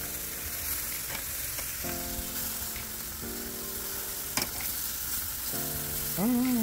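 Chicken sizzling and spitting on a charcoal kettle grill while metal tongs turn the pieces, with a sharp tong click about four seconds in. Steady background chords change every second or two underneath.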